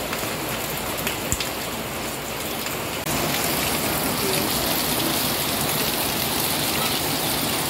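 Heavy rain falling steadily on leaves and splashing into puddles on the ground, with no break; it becomes louder and fuller about three seconds in.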